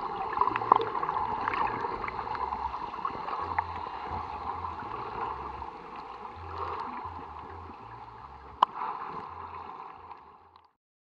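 Muffled underwater bubbling and water rush, heard with the microphone below the surface as swimmers who have jumped in stir the sea. It fades gradually, with one sharp click about two-thirds of the way through, then cuts off just before the end.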